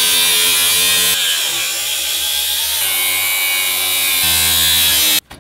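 Electric angle grinder with a thin cut-off wheel cutting through a car's rusted sheet-steel floor pan: a loud, steady whine with a cutting hiss, shifting in pitch a few times and stopping abruptly near the end.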